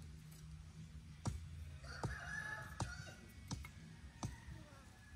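Faint sharp clicks about once or twice a second, with a rooster crowing briefly about two seconds in.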